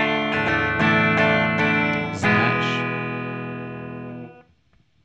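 Electric guitar strumming chords about two and a half times a second, then the song's final chord at about two seconds in, left to ring and fade for about two seconds before it is cut off sharply.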